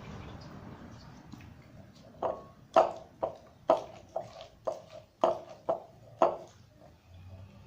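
Homemade glue slime being worked by hand in its container: about ten short, wet squelching pops roughly two a second, starting about two seconds in. The slime is only partly activated with boric acid water and still sticky.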